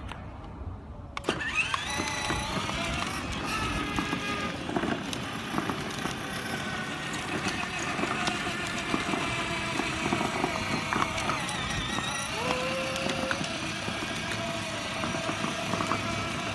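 Battery-powered ride-on toy car driving on asphalt: it starts up about a second in, then its electric drive motors run with a steady whine while the plastic wheels roll and rattle.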